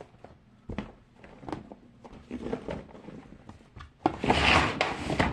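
Small plastic fidget toys being handled: light clicks and knocks as pieces are picked up and set down, then a louder stretch of rattling and rummaging through the pile about four seconds in.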